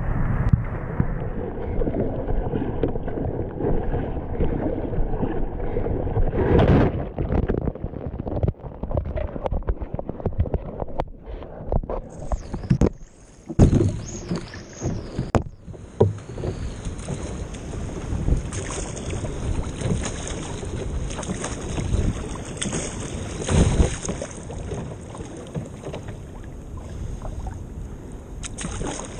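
Whitewater splashing over and rushing past a plastic sit-on-top kayak as it is paddled out through breaking surf, with frequent sharp splashes and knocks against the hull. There is a short lull about halfway through.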